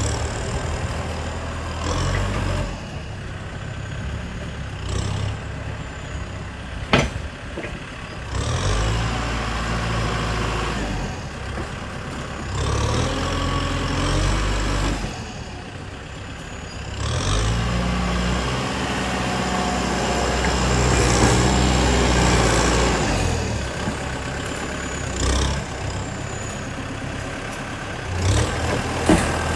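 Diesel engines of a dump truck and a bulldozer running, revving up and settling back several times. Brief high-pitched squeals come and go, and there is a single sharp crack about seven seconds in.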